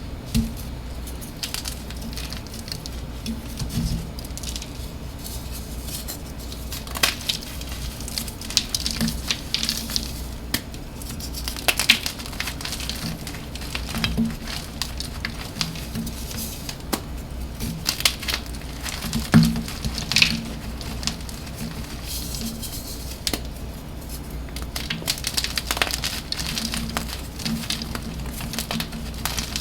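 Dyed blocks of gym chalk crushed and crumbled by hand, with steady crackling and crumbling and scattered sharp snaps as the chalk breaks apart. A steady low hum runs underneath.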